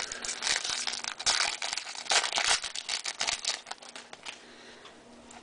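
Crinkling and crackling of a foil trading-card pack wrapper being handled and torn open. It is dense for about three seconds, then dies away to occasional faint rustles.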